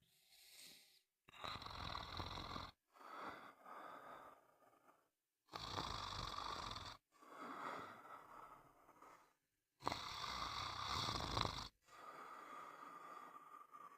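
Snoring: a run of rasping snore breaths, each lasting a second or two, one after another with short silent gaps between them.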